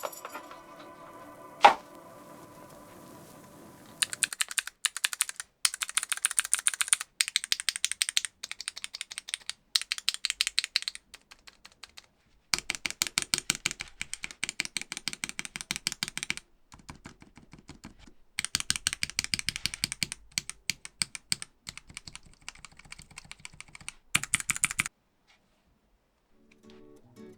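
Typing on a Groovestone GS-series mechanical keyboard: runs of rapid key clicks in bursts with short pauses, starting about four seconds in and stopping shortly before the end.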